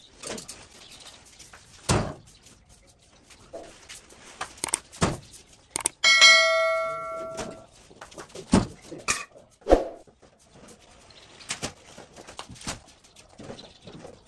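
Scattered knocks and thuds, with one loud metallic ring about six seconds in that fades out over a second and a half, like struck metal ringing.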